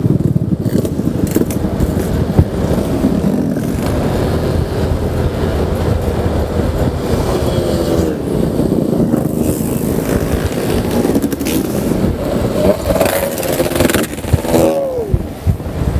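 Honda Vario 125 single-cylinder scooter riding steadily at road speed, with continuous engine and road rumble. Other motorcycles close alongside add engine sounds that rise and fall in pitch, mostly in the second half.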